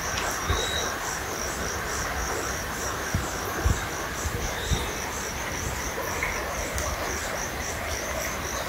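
An insect, cricket-like, chirping steadily in even pulses, about three a second, over the steady rush of a small river, with an occasional faint bird note. A few soft low thumps come near the middle.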